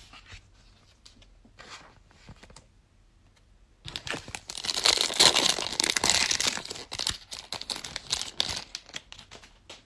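Foil trading-card pack of Panini Select basketball cards being torn open and crinkled by hand. After a few faint clicks, a loud burst of tearing and crinkling starts about four seconds in and tails off near the end.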